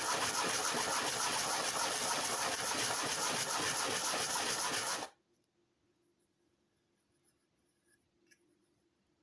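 Cut neck of a plastic PET bottle rubbed fast back and forth on a sheet of 120-grit sandpaper, a dense steady rasping as the cut edge is sanded flat. It stops abruptly about five seconds in, leaving near silence with a faint hum and a couple of light clicks.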